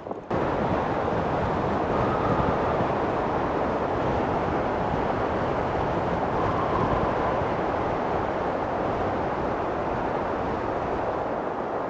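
Strong mountain wind buffeting the microphone: a steady, dense rumbling rush that cuts in suddenly right at the start and then holds.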